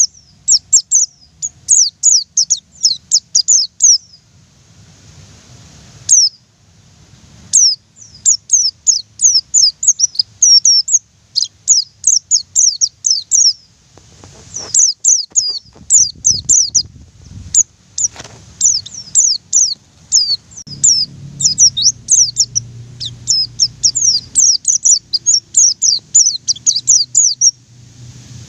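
Pleci (white-eye) singing in long, rapid runs of high, sharp, downward-sweeping chirps, broken by a few short pauses.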